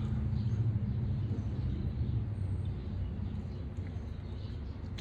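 Low, steady engine drone that slowly fades away, with a few faint high chirps above it.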